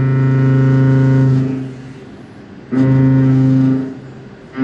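Walter BLAXX indexable milling cutter cutting steel, a loud steady hum with many overtones. It stops about a second and a half in, comes back sharply for about a second around the three-second mark, and starts again right at the end, as the cutter enters and leaves the cut.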